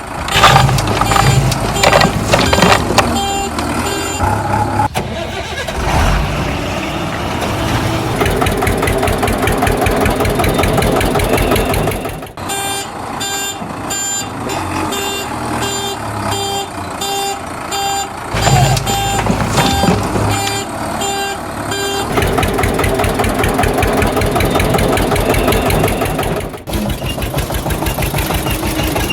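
Heavy-vehicle engine running, with a reversing alarm beeping over it in two stretches near the start and in the middle. The engine sound changes abruptly several times.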